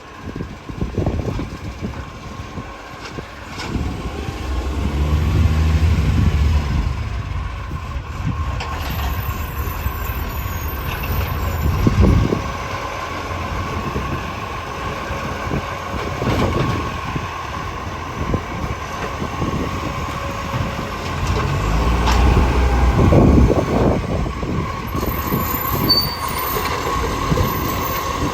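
Garbage truck with a leaking exhaust, its engine running and revving up twice, about five seconds in and again near the end. There are two sharp knocks in between.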